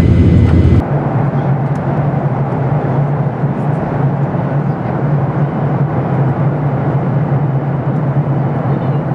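Boeing 737-800 jet noise heard inside the cabin, a deep steady drone, cuts off less than a second in. It is replaced by steady airliner cabin noise: an even rush of air with a low hum.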